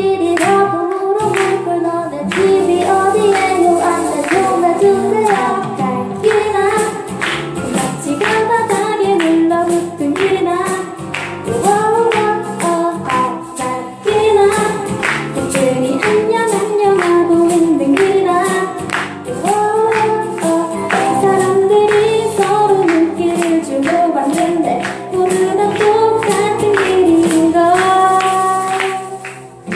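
Live amateur band playing a song: a lead singer over accompaniment, with a steady drum beat.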